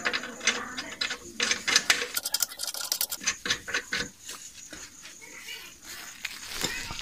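Hands and tools working on the car's front suspension parts: a busy run of scraping, rubbing and sharp clicks and ticks.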